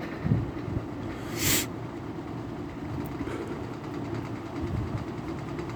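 Hunter FZ20 metal-bladed box fan running on low with a steady motor hum, just after a cold start that it took badly: it "did not enjoy that at all". There is a low thump shortly after the start and a brief hiss about a second and a half in.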